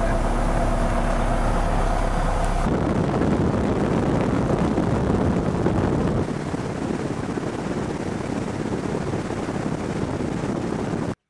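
Cessna 172 floatplane's engine running steadily, heard inside the cabin. After a cut about three seconds in, it gives way to an even rushing noise of engine, wind and water spray as the float ploughs across the lake. That noise drops a little about six seconds in and cuts off abruptly at the very end.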